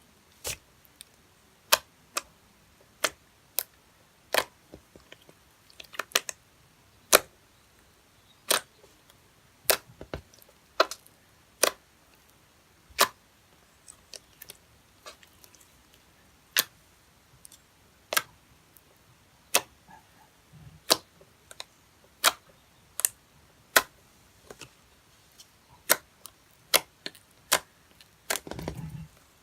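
Fake-blood slime being squeezed and poked, making sharp popping clicks about once or twice a second, with a longer, noisier squish near the end.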